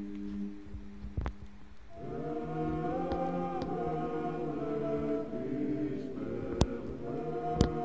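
Church choir singing a slow chant in long held chords, with a new chord coming in about two seconds in. A few sharp clicks cut across it, the loudest two near the end.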